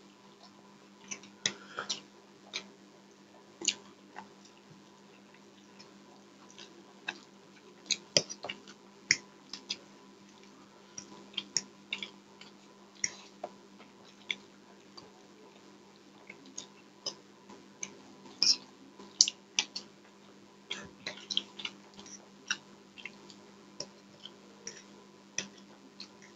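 Close-miked eating sounds from two people eating noodles with forks: quiet chewing, broken by irregular sharp clicks of the forks against the plates, about one or two a second.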